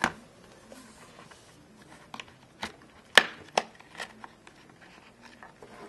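Sharp plastic clicks and taps as a tablet's plastic back case is pried and worked loose by hand: several separate clicks, the loudest about three seconds in.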